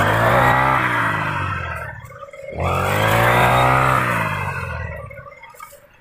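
Handheld brush cutter engine revving up to cutting speed and easing off twice, as the blade mows through standing wheat.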